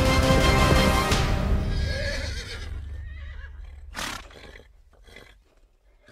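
Music fades out over the first few seconds. About four seconds in a horse gives one short, loud burst of sound, followed by a few fainter ones that trail away.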